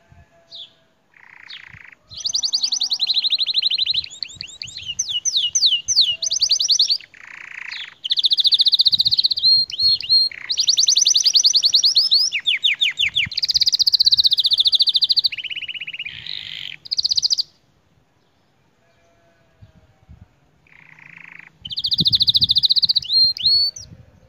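Domestic canary singing a long song of fast trills and rolling phrases of rapidly repeated notes. About two-thirds of the way through the song breaks off for a few seconds, then resumes.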